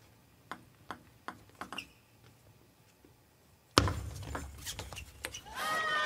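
Table tennis rally: a few sharp clicks of the ball off paddles and table in the first two seconds. Then, from about four seconds in, a sudden burst of arena noise with clapping, and a player's shout near the end as the point is won.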